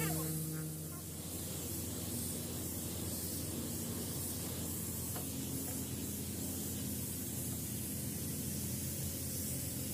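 Compressed-air gravity-feed paint spray gun hissing steadily as it sprays paint, with a faint low hum underneath.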